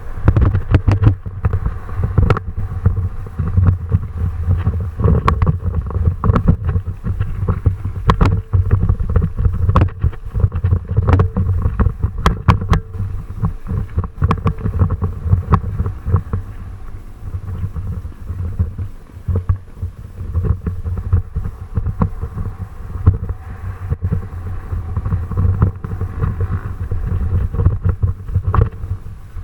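Heavy wind rumbling on the microphone during a fast descent, with many sharp knocks and rattles scattered through it.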